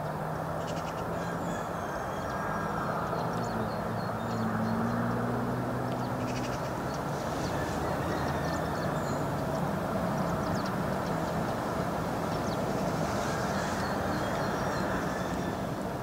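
Steady low rumble with an engine-like hum, like distant traffic, and small birds chirping now and then.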